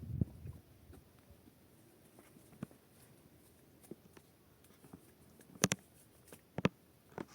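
A low thump at the start, then scattered sharp clicks and taps at irregular intervals, the loudest two about a second apart near the end.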